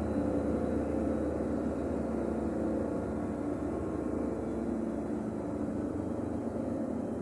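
Bosch Serie 8 washing machine spinning its drum: a steady motor hum and rumble with a few held tones.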